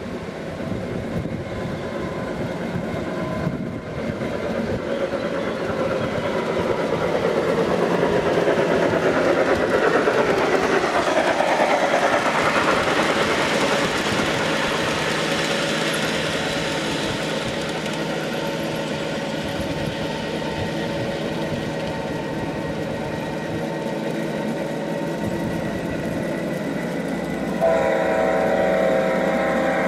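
Garden-scale model diesel passenger train running along its outdoor track, a steady rolling rumble that grows louder as it approaches. About two seconds before the end a horn sounds suddenly and holds.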